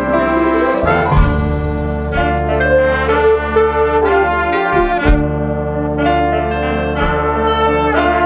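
Instrumental ensemble music with brass holding sustained chords over a low bass line, with a cymbal crash about a second in.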